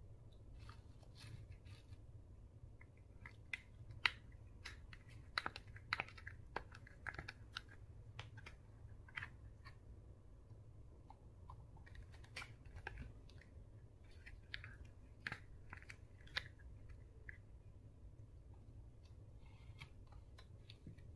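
Slime being mixed, giving scattered small sticky clicks and crackles, busiest about four to seven seconds in and again around twelve to sixteen seconds in.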